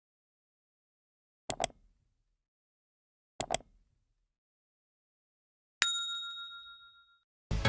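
Two sharp double clicks, about two seconds apart, then a single bright ding like a small bell that rings for about a second and a half and fades. Electronic dance music comes in right at the end.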